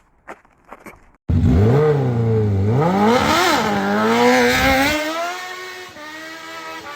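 An engine revving up and down after a second of near quiet with a few clicks, then running on more quietly.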